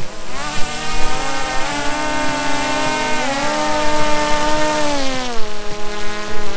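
DJI Mavic Pro quadcopter's four propellers whining at close range while the drone is held in the hand by a grab handle. The motors keep running, and their pitch rises about a second in, shifts in the middle and falls about five seconds in as the rotors adjust.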